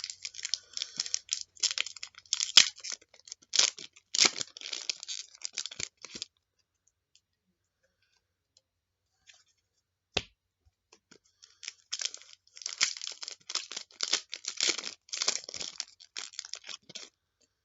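Trading-card pack being torn open, its wrapper crinkling and the cards handled, in two bouts of crackly rustling with a quiet gap of several seconds between them and a single click in the gap.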